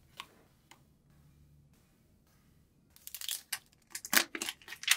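Clear plastic protective film crinkling and tearing as it is peeled off a smartphone, a rapid run of sharp crackles in the last two seconds. Near the start there are two faint snips of scissors cutting the box's seal sticker.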